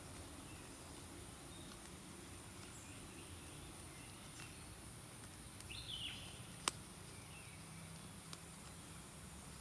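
Faint outdoor ambience: a steady high insect hum, a short bird chirp about six seconds in, followed by a single sharp click and a few softer ticks.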